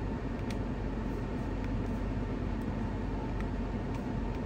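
A 2022 Toyota RAV4's 2.5-litre four-cylinder engine idling steadily in Park, heard from inside the cabin, with a few faint clicks.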